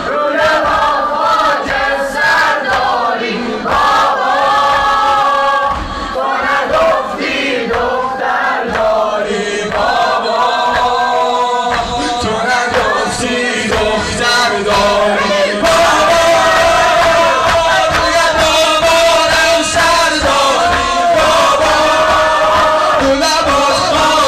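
Crowd of male mourners chanting a Shia Muharram noha (mourning lament) in unison, with rhythmic chest-beating thumps through the chant.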